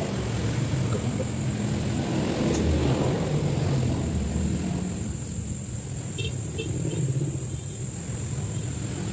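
Low, steady rumble of a motor vehicle engine running, with a few faint short high chirps about six seconds in.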